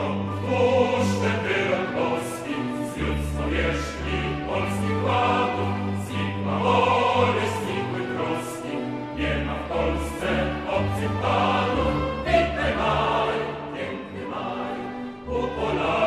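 A choir sings a Polish patriotic song with instrumental accompaniment, sung notes held over a steady bass line.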